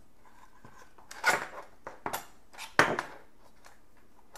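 Sharp metallic clicks and clanks of a screwdriver and a steel junction box handled together, as a knockout is pried out and a metal quick-connect cable clamp is fitted into the hole. Three louder clanks come about one, two and three seconds in, with lighter taps between.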